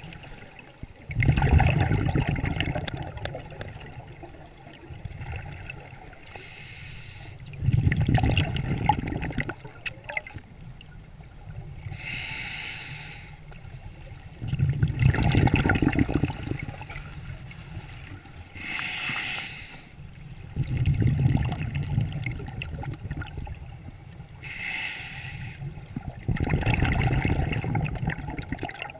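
Scuba diver breathing through a regulator underwater: a short hissing inhale, then a louder rush of bubbling exhaled air. The cycle repeats about every six seconds, five exhales in all.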